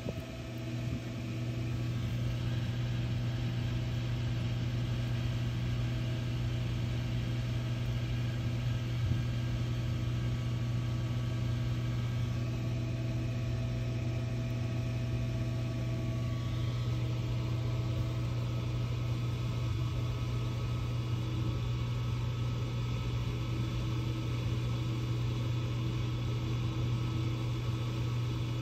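A steady, low machine hum with several constant tones over it, unchanged throughout.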